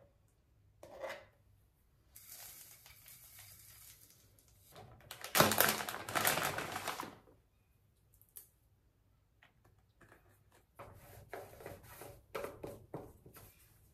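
Crinkling of a plastic food packet, then dry cereal pouring from it into a plastic cup, loudest about five to seven seconds in. Near the end, a quick run of clicks and scrapes as a lid is fitted onto the cup.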